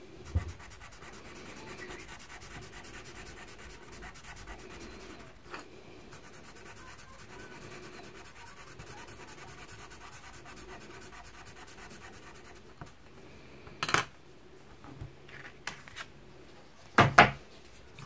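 A white oil-based pencil scratching quick back-and-forth hatching strokes on grey drawing paper, steadily for about twelve seconds. Near the end come a couple of loud knocks as the paper sheet is handled.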